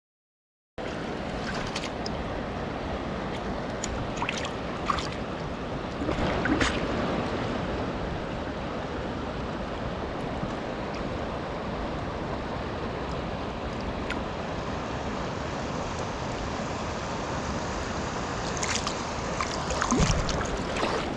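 Steady rushing of a river's current, with a few brief knocks and splashes around the start and again near the end.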